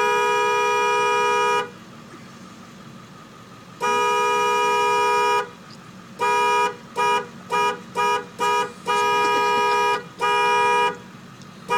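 Diesel truck's horn honked in uneven blasts: two long blasts of over a second each, then a quick run of five short toots, then two more long blasts.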